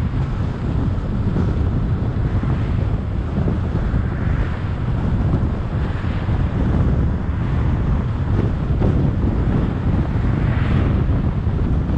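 Wind buffeting the microphone of a camera on a moving car, a steady low rumble over tyre and road noise, with a few brief swells of hiss.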